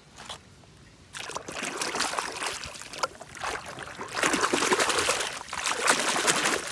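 Water splashing and sloshing as a muddy toy truck is swished by hand under the surface to wash the mud off. It starts about a second in and grows louder for the last couple of seconds.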